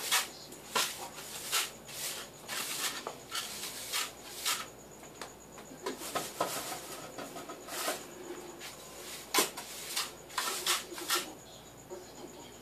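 Broom and dustpan sweeping up debris: short, irregular swishing strokes, one or two a second, with a pause a little before the middle and fewer near the end.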